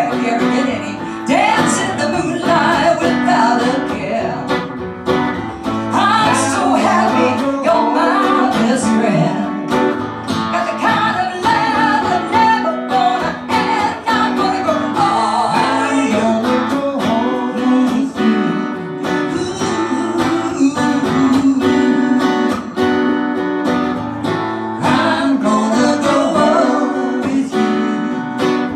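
Live acoustic country song: a strummed acoustic guitar accompanying a woman's singing.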